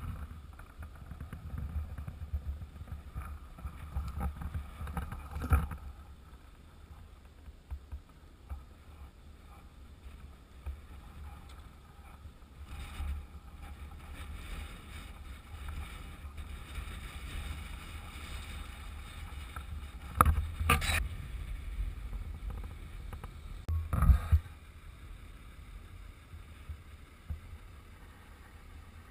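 Low, steady rumble of wind buffeting an outdoor camera microphone, with a few sudden loud bumps, the two strongest in the last third.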